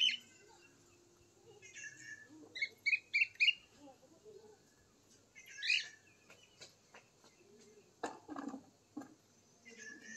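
Birds chirping in short high calls, with a quick run of four chirps about three seconds in. Near the end comes a cluster of sharp taps from beaks pecking at a steel feed bowl.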